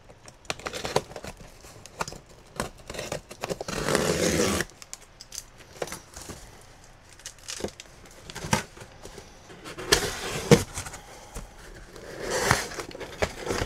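Packing tape on a cardboard box being cut and torn, with a longer stretch of tearing a few seconds in, then knocks and scrapes of the cardboard as the flaps are pulled open. Polystyrene packing rustles near the end.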